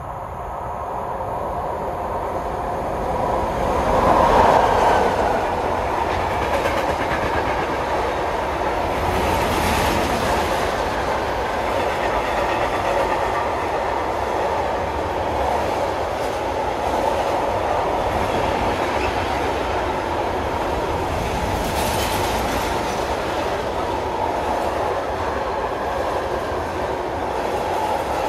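Container freight train hauled by an electric locomotive passing through a station. The locomotive goes by loudest about four seconds in, followed by a steady rumble of the flat wagons' wheels on the rails.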